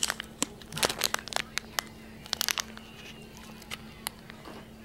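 Small clear plastic bag crinkling as it is handled, with scattered sharp crackles that are busiest in the first couple of seconds and thin out towards the end.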